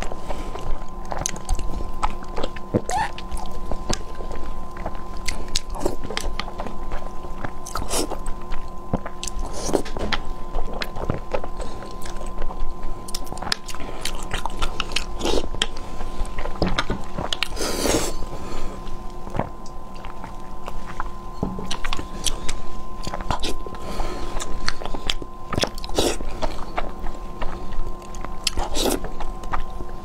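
Close-miked eating of saucy spicy fire noodles and sauce-coated boiled eggs: chewing and wet mouth smacks in an irregular run of short sharp clicks, over a faint steady hum.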